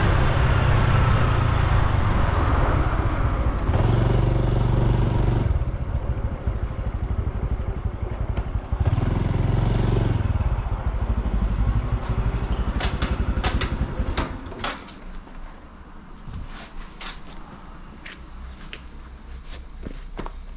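Honda Super Cub C125's single-cylinder four-stroke engine and exhaust running, the pitch rising and falling with the throttle. About fourteen seconds in, the sound drops much quieter and a series of sharp clicks and knocks follows.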